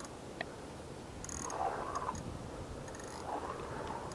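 Fishing reel being cranked in short spurts a few times, each a brief faint whirring tick, as a hooked fish is reeled in.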